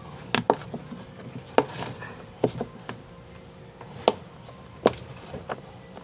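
Irregular sharp clicks and knocks, about seven in six seconds, from hands and a small metal tool working at a washing machine's plastic base panel.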